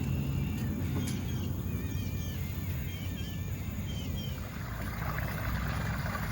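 A boat's outboard motor running low and steady, with birds chirping repeatedly over it for the first few seconds.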